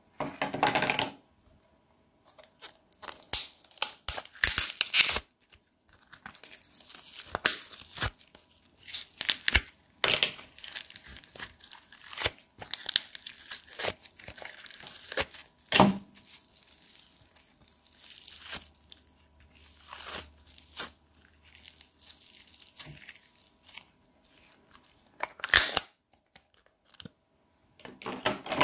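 Fingers squishing and poking slime, clay and foam-bead slime (floam): irregular crackling, crunching and sticky tearing sounds in short bursts, with brief pauses between them.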